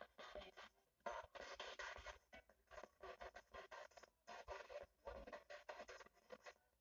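A ghost-hunting spirit box, a radio sweeping rapidly through stations, played through a small speaker: choppy bursts of static and broken radio fragments, chopped off several times a second with short gaps between.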